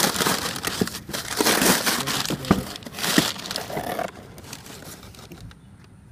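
Brown kraft packing paper crumpling and rustling as a cardboard box is unpacked, with a few sharp crackles, dying down about four seconds in.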